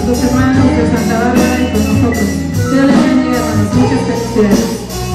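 Live worship band music: electric guitars and bass over a steady percussion beat.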